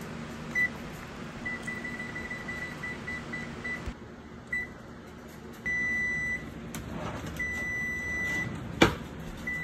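Gas range's electronic oven control beeping as its keys are pressed to set a 12-minute timer: a quick run of short beeps, all at one pitch. Later come longer beeps at the same pitch as the display reads End, signalling the timer is up. A sharp click sounds just before the end, over a low steady hum.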